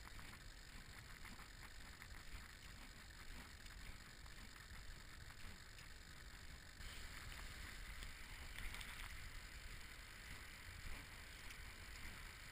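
Faint, steady wind rumble on the camera microphone over a wide beach, with soft scattered footsteps on sand.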